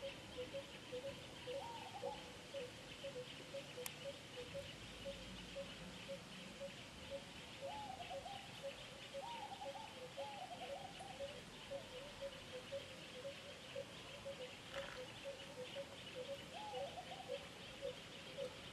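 Outdoor animal ambience: a short chirp repeated steadily about three times a second over a faint high hiss, with a few short wavering calls now and then.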